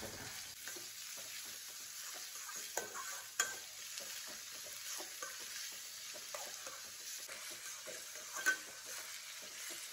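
Chopped onions sizzling in oil in a stainless steel kadai while a metal spatula stirs and scrapes through them, the onions being sautéed soft. A few sharp clinks of the spatula against the pan stand out, the loudest about three and a half seconds in and again near the end.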